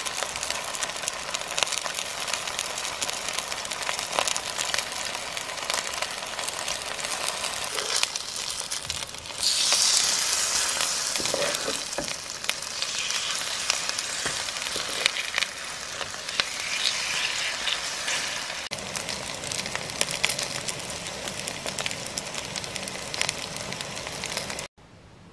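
Garlic chive and shrimp pancakes (buchujeon) frying in oil in a pan: a steady crackling sizzle. About ten seconds in it swells louder for a second or two, and it stops suddenly near the end.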